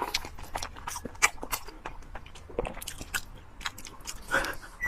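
Close-up chewing of raw salmon sashimi: irregular wet mouth clicks and smacks.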